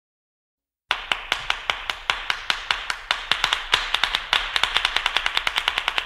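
Rapid train of sharp clicks or taps, starting abruptly about a second in and quickening from about five to about eight a second.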